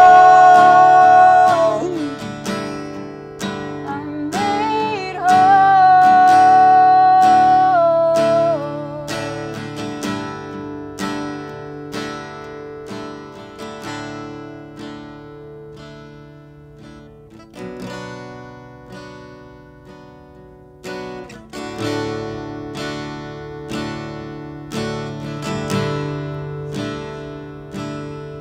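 Acoustic guitar strummed and picked in a slow song, with held sung notes at the start and again from about five to nine seconds in; after that the guitar plays alone, softer, with a short lull around seventeen to twenty-one seconds before the strumming picks up again.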